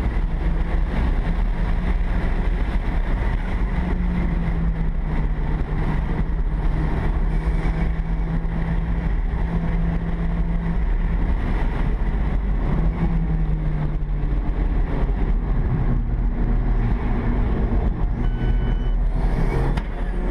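Alfa Romeo car's engine running with a heavy low rumble and a drone that shifts in pitch several times as engine speed changes. There is a short electronic beep near the end.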